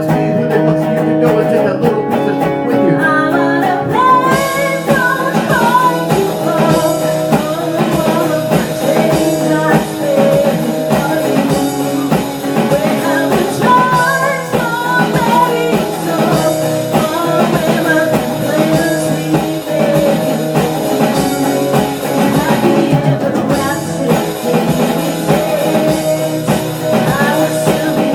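Pop-rock song with guitar and a sung vocal melody. The mix gets brighter and fuller about four seconds in.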